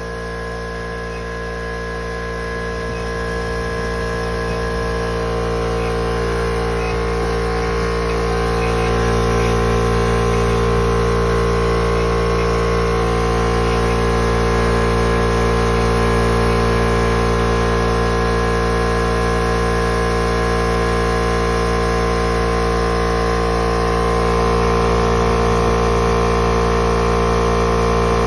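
Husky oil-free air compressor running: a loud, steady drone from its motor and pump, growing louder over the first several seconds and then holding steady.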